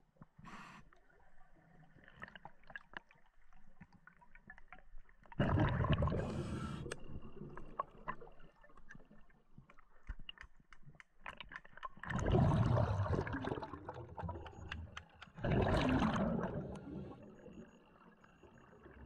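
A scuba diver's exhaled breath bubbling out of the regulator underwater: three bursts of bubbles, each lasting about one and a half to two and a half seconds, with faint clicks and ticks in between.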